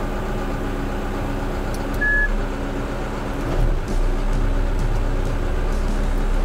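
A Cat small dozer's diesel engine running steadily at a standstill, with one short high beep about two seconds in. The engine gets slightly louder from about four seconds on, while the blade is being moved.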